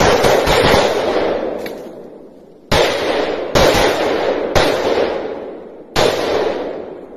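Gunshots with a long rolling echo. The echo of a rapid run of shots dies away, then four single shots follow about a second apart, each echo fading over a second or more.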